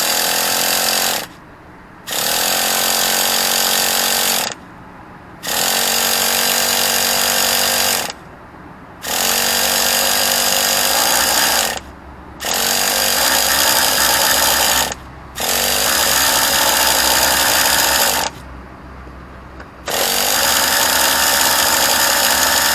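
Traxxas EZ-Start electric starter cranking a T-Maxx 2.5 nitro engine in repeated bursts of two to three seconds, seven times. Each burst spins up in pitch, then runs steadily. The engine does not catch and run: the nitro engine won't start despite fuel flowing through the carburetor.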